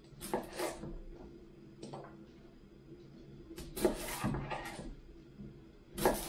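Chef's knife cutting a shallot on a wooden cutting board: short bursts of crisp slicing strokes and knocks of the blade on the board, loudest about four and six seconds in.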